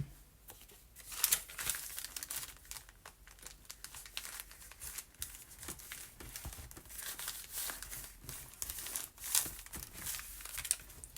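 Paper being handled: irregular crinkling and rustling of scrap and craft paper, with a sharp tap at the very start.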